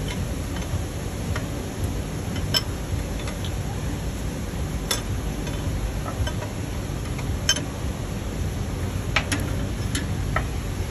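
A handful of sharp metallic clicks a couple of seconds apart as a 3/4-inch combination wrench is worked on a coolant line fitting at a Detroit diesel's EGR valve actuator, loosening the line, over a steady low background rumble.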